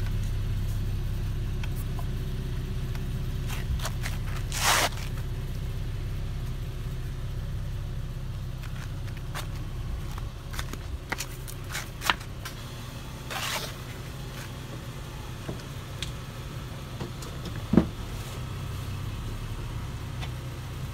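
A car engine idling steadily, with a few scattered clicks and scrapes over it, the sharpest near the end.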